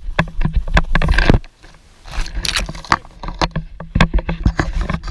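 A runner's footfalls on a dry dirt trail, picked up by a carried action camera as a steady run of knocks with rattling from the camera. Two rushes of noise, about a second and two seconds in, are wind or dry grass brushing past.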